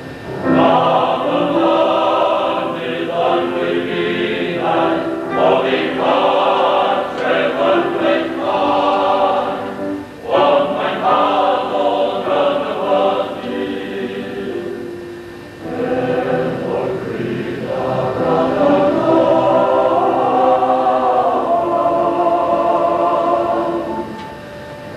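Welsh choir singing a piece in harmony on stage, in sustained phrases with brief breaks between them about ten and fifteen seconds in.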